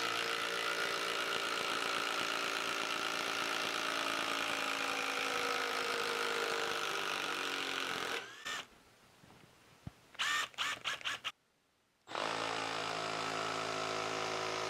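Makita 12V cordless impact driver hammering a long screw into hard end-grain wood in one steady run of about eight seconds, then stopping. After a few short bursts, a Milwaukee M12 Fuel impact driver starts driving the next screw about twelve seconds in, a sound described as quiet.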